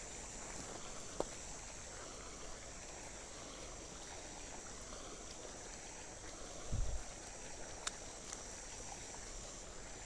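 Quiet outdoor ambience at a pond: a faint steady hiss, with a single low thump about seven seconds in and a couple of light clicks.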